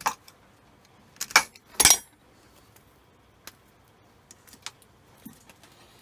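Metal clinks and rattles of tools and wire being handled on a workbench. A sharp clink comes first, then a rattling pair just after a second in, and the loudest rattle about two seconds in, followed by a few faint ticks.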